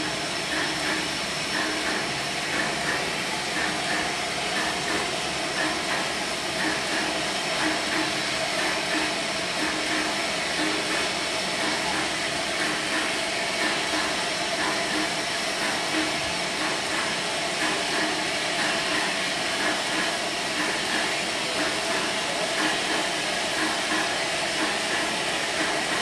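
Steam locomotives standing at a halt, steam hissing steadily from them, mixed with the noise of heavy rain.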